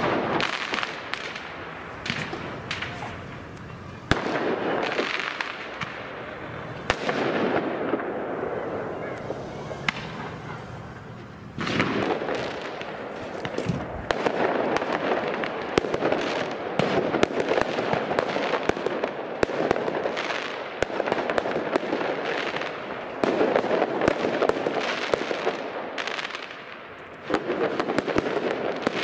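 Firework mortars going off again and again: volleys of sharp cracks and crackling bangs, coming in loud surges every few seconds.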